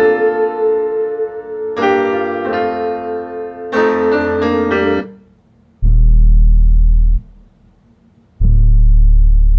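R&B-style music: electric piano chords for about five seconds, then two long, deep bass notes, each about a second and a half, with short gaps between them.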